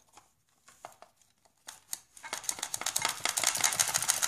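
Hands tugging and working wires loose from a radio-controlled car's plastic chassis and electronics. There are a few scattered clicks at first, then from about halfway through a dense, rapid clicking and rattling.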